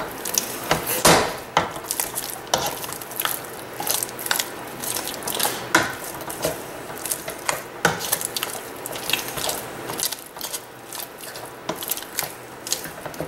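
Potato masher knocking and scraping against the inside of a stainless steel pot while mashing potatoes: irregular clicks and knocks, a few a second.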